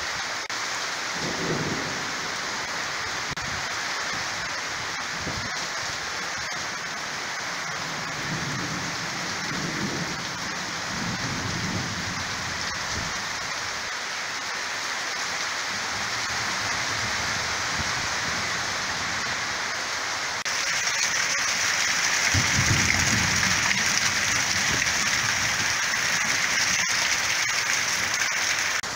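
Heavy thunderstorm downpour, rain pouring steadily, with low rolls of thunder shortly after the start, again near the middle, and again about three-quarters of the way through. The rain grows louder about two-thirds of the way through.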